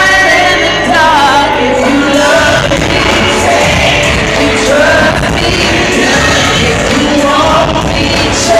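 Loud music with a singer's voice.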